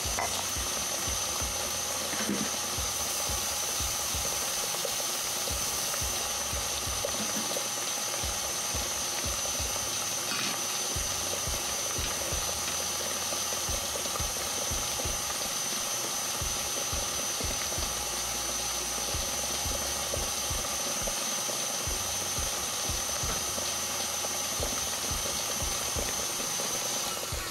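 KitchenAid Artisan stand mixer running steadily with a high whine, its flat beater churning thick cake batter in a metal bowl as eggs are beaten in; it is switched off near the end.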